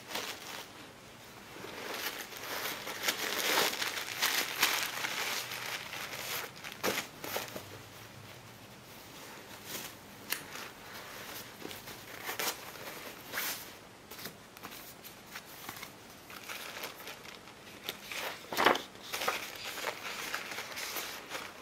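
A canvas tote bag and a thin plastic bag being handled and unpacked by hand, making irregular rustling and crinkling, with one sharp tap late on.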